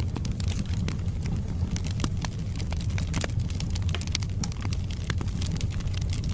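Wood fire burning in a fireplace: a steady low rumble of the flames with many irregular sharp crackles and pops from the logs.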